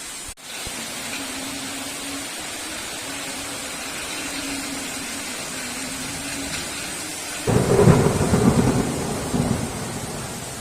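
Heavy rain falling steadily, then a sudden loud clap of thunder about three-quarters of the way through that rumbles and dies away over a couple of seconds. The rain sound cuts out for an instant just after the start.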